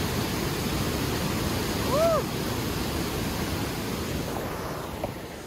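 Steady rushing of a glacial meltwater torrent in white water, an even wash of sound that eases a little near the end, with one brief rising-and-falling note about two seconds in.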